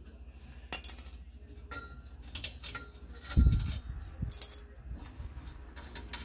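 Light metallic clinks of a bolt against the exhaust flange and surrounding metal as it is handled, with a dull low thump about three and a half seconds in. A faint steady low hum runs underneath.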